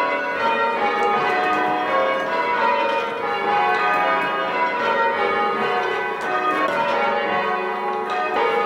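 A ring of church tower bells being rung in change ringing, the bells striking one after another in steady succession with their tones overlapping, just after the treble has been called to start.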